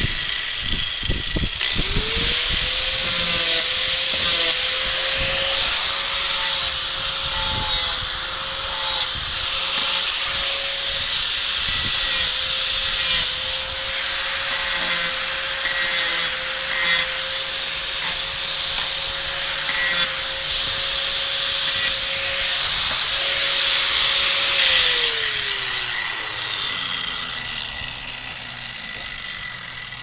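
Electric angle grinder running at full speed, its disc grinding into the end of a steel bar, with a steady motor whine under a hiss that surges each time the disc bites. Near the end the grinder is switched off and the motor winds down, its pitch falling.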